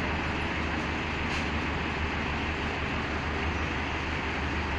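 Tractor engine running steadily with a low drone as it tows a house on a trailer.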